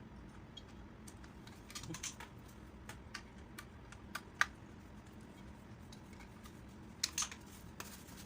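Scattered light clicks and taps of small chainsaw parts being handled while the ignition magneto is refitted, with the sharpest click about four seconds in.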